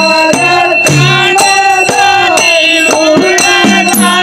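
Dollina pada folk song: a male voice singing over hand drums and jingling percussion, the drum strokes coming about two a second.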